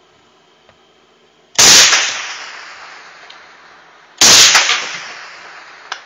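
Two very loud rifle shots about two and a half seconds apart, each followed by a long echo dying away: a sniper firing at a hovering bomber drone.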